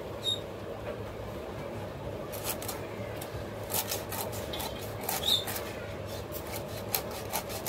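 Hilsa fish being scraped and cut against a boti's fixed curved blade: a run of short, sharp scraping strokes and clicks starting about two seconds in, over a steady low hum.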